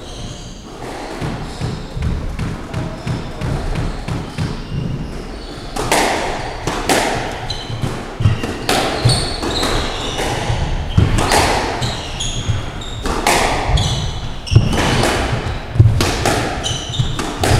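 Squash rally: the ball is struck by rackets and smacks off the court walls in a string of sharp hits that come faster and louder from about six seconds in, with shoes squeaking on the wooden floor.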